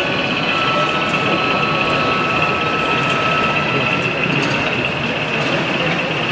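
Steady background noise of a busy exhibition hall, with a constant high-pitched hum running under it.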